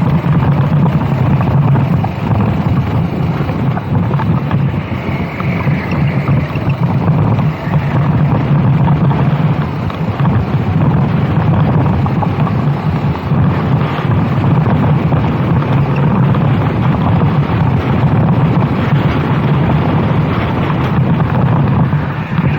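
Go-kart engine running at racing speed, its note wavering as it drops and picks up again, with heavy wind buffeting on the microphone.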